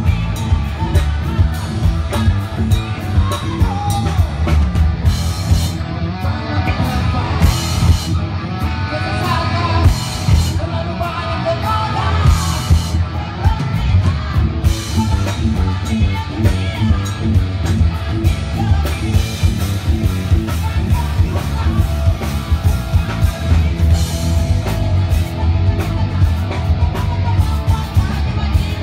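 Live band playing loud through a PA: a singer over a drum kit and bass guitar, with a steady drum beat and heavy bass.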